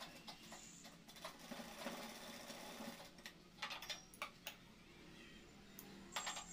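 Faint rustling of cotton cloth and a few scattered small clicks and knocks as the stitched cloth is pulled free of the sewing machine and its thread drawn out; the machine itself is not running.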